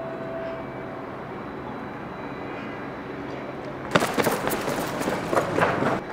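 Steady low hum of outdoor urban background noise; about four seconds in, a sudden loud burst of rustling and knocking with sharp clicks lasts about two seconds and cuts off abruptly.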